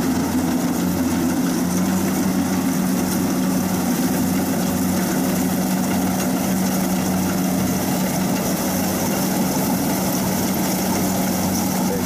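Kubota DC-60 rice combine harvester's diesel engine running steadily as the machine cuts rice, a constant low hum with machinery noise over it.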